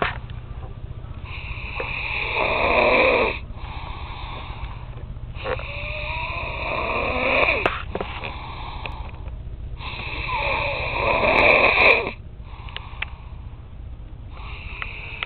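Snoring from someone asleep: three long, loud snores about four seconds apart, with softer rasping breaths in between.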